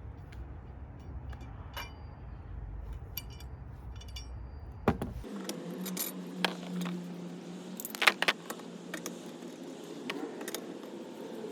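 Metal clinks and rattles of lug nuts and a lug nut wrench being handled as the wheel's lug nuts come off, with scattered sharp clicks and a louder cluster about eight seconds in.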